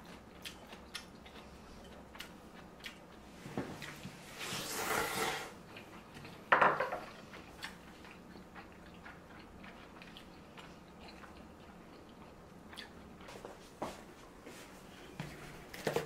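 Table eating sounds: wooden chopsticks clicking lightly against ceramic bowls and plates, a longer slurp of udon noodles about four seconds in, and a louder knock of crockery about six and a half seconds in.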